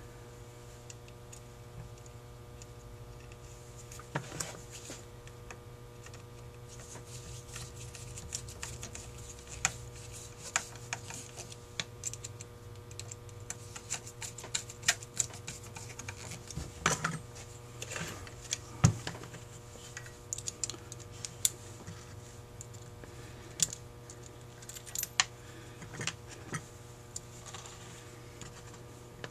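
Irregular small clicks and taps of a screwdriver and metal parts as the choke cover screws on a Carter YFA carburetor are driven and the carburetor is handled on the bench. A steady low hum runs underneath.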